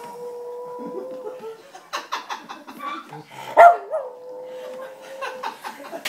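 Dog howling in long, steady held notes, with a louder, sharp rise-and-fall cry about three and a half seconds in. The howling is set off by an ambulance siren sound played on a computer.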